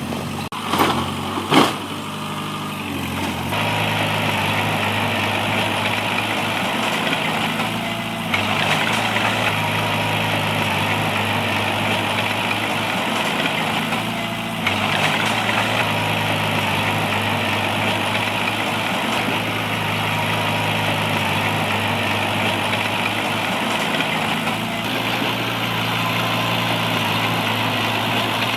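Heavy diesel engine of earth-moving machinery running steadily, with a few sharp knocks in the first two seconds. The engine gets louder at about three and a half seconds and dips briefly twice further on.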